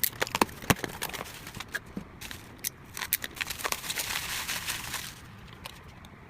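Packaging of a replacement phone LCD being opened: plastic and wrapping crinkling with many sharp clicks, then a denser stretch of rustling between about three and five seconds in.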